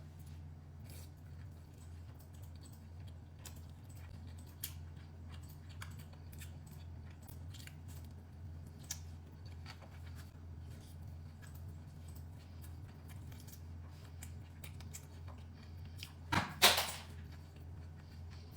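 Scattered light clicks and taps of chopsticks and sushi packaging over a steady low hum, with a louder clatter near the end.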